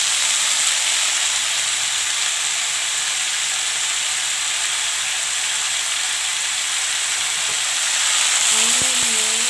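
Cauliflower and potatoes sizzling as they fry in a pan: a steady hiss. A brief wavering pitched sound comes in near the end.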